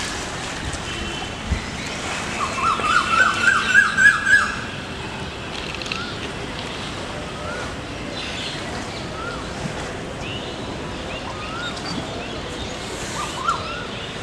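A bird calling: a quick run of short rising notes a few seconds in, the loudest part, then single rising calls every second or two, over a steady outdoor hiss.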